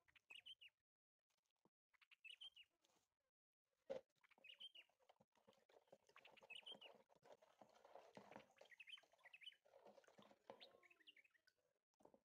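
Faint, high bird-like chirps every second or two over the soft scrape and slosh of a wooden spoon stirring slaked lime into water in a plastic basin, with a sharp knock of the spoon about four seconds in.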